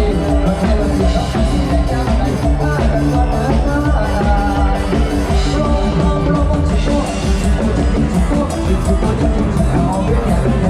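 Loud lam sing band music: a drum kit keeps a steady, fast beat under electric keyboard and other instruments playing a melody.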